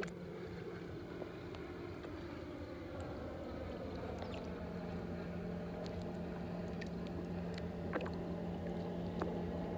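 A steady low motor hum, like a boat engine running, with faint small splashes and drips of water as a musky is held in the water to revive.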